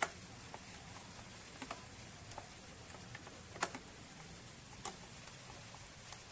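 Scattered light clicks and taps, irregularly spaced, with a sharper click at the start and another about three and a half seconds in, over a faint steady low hum.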